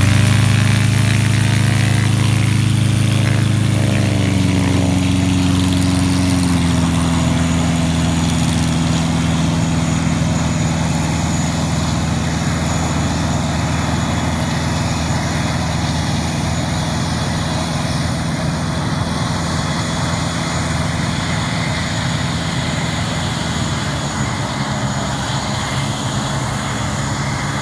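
Storch SL-2 ultralight aircraft's piston engine and propeller running as it taxis away. The engine note drops in pitch twice in the first several seconds, then holds steady while slowly fading.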